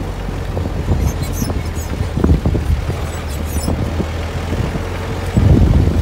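4x4 safari jeep driving along a sandy dirt track: the engine runs steadily under wind buffeting at the open window, and the rumble grows louder near the end.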